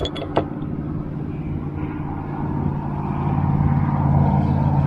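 A motor engine runs with a steady low hum, growing louder as it approaches. Two small clicks sound right at the start.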